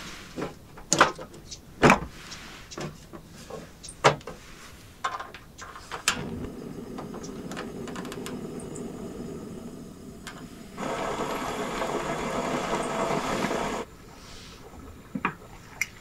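A butane canister is clicked and clunked into place in a portable cassette gas stove. About six seconds in, a sharp ignition click lights the burner, which runs with a steady low gas roar. Near the middle, a louder rushing noise comes in for about three seconds and cuts off suddenly, and two clicks sound near the end.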